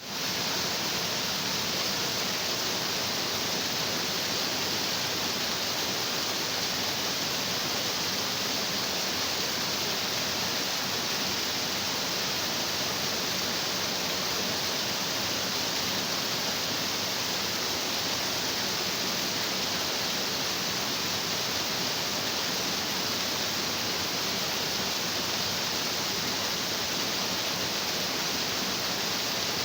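Stream of water rushing over rocks: a steady, even rush that fades in at the very start.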